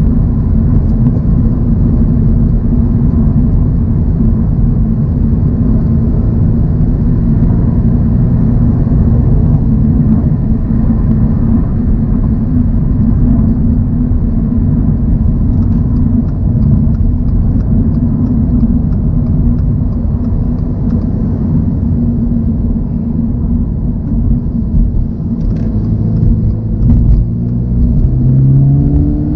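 Toyota GR86's 2.4-litre flat-four engine and tyre and road noise at a steady highway cruise, a constant low drone. Near the end the engine note climbs and then dips as the revs change.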